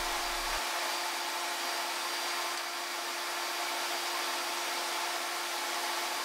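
Suhner UAL 23RF router motor spinning a round-over bit in a router table, a steady high whine over the rush of a dust extractor, while a wooden strip is fed past the bit to test the chip extraction.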